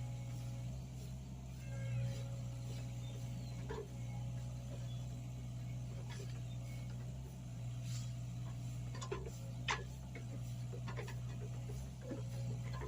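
Mini excavator engine running steadily while digging a trench, with scattered short knocks and clicks.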